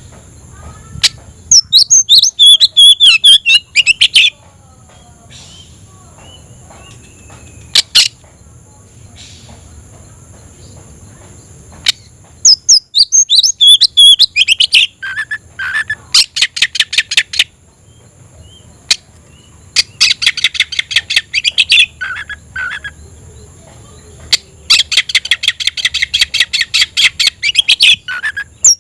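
Oriental magpie-robin (kacer) singing loudly in full song: several bursts of quick, varied whistled phrases and fast runs of repeated notes, separated by short pauses.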